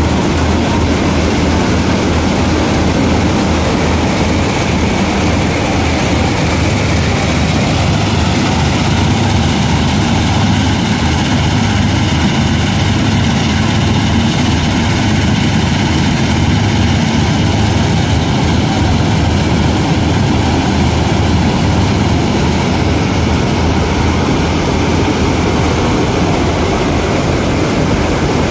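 Gahir 930 combine harvester running steadily at close range while cutting and threshing ripe wheat: a continuous heavy engine drone mixed with the rush of the cutter bar, reel and threshing machinery.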